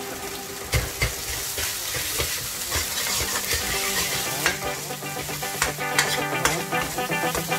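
Food sizzling in a hot wok as it is stir-fried, with the metal spatula knocking against the pan now and then.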